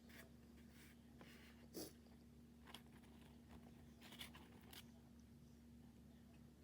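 Near silence with a handful of faint mouth clicks and smacks from someone chewing chicken wings, the most noticeable nearly two seconds in, over a low steady hum.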